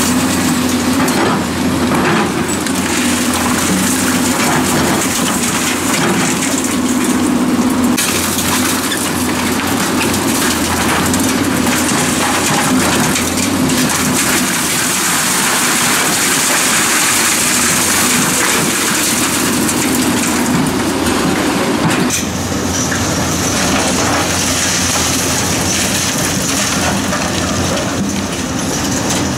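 Hyundai crawler excavator's diesel engine running under load while its bucket breaks up a damaged concrete building, with concrete and rubble crashing and scraping down in a continuous din.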